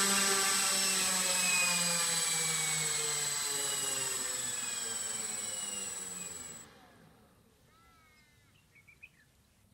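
Twin electric motors and propellers of a Freewing OV-10 Bronco RC model winding down after landing, their hum falling steadily in pitch. A high steady whine cuts off suddenly about two-thirds of the way in, leaving near quiet with a few faint chirps near the end.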